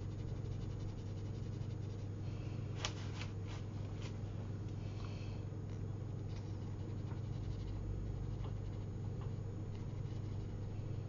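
Water brush scrubbing and stroking across watercolour paper, with a few light ticks about three seconds in, over a steady low hum.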